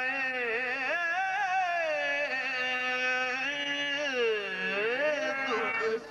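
Male qawwali singer holding a long, wordless, ornamented phrase with vibrato over a steady held drone. His voice sweeps down and back up about four to five seconds in, then breaks off briefly near the end.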